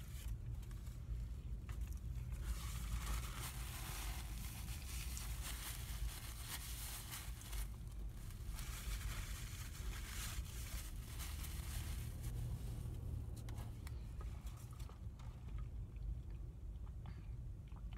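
Paper sandwich wrapper crinkling and rustling as it is unwrapped and handled, dying down about fifteen seconds in. A steady low hum of the car cabin runs underneath.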